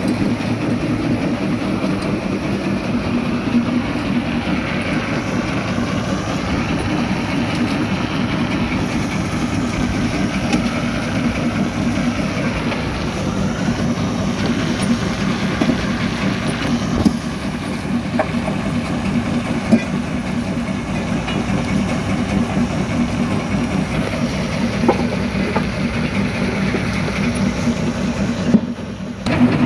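Primary jaw crusher running under load, a steady heavy rumble broken by occasional sharp knocks as rock is crushed. The sound drops away briefly near the end.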